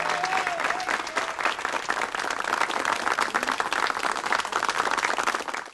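Applause with many hands clapping at the end of a chacarera.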